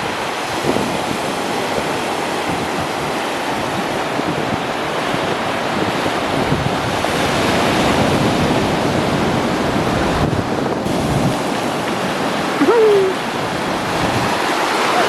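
Ocean surf breaking and washing up the beach, with wind buffeting the microphone; the wash swells about halfway through and eases off. A short rising-then-falling call cuts in about two-thirds of the way through.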